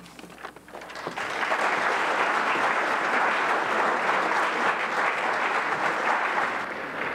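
Audience applauding: a few scattered claps, then full applause from about a second in, thinning out near the end.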